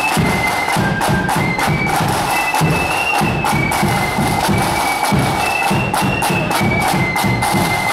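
Marching flute band playing: a shrill melody of many flutes over a steady beat of snare and bass drums.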